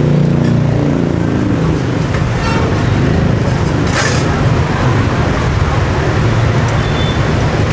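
Steady road-traffic noise with engine rumble, a passing engine fading out in the first second. There is a brief sharp rustle about four seconds in.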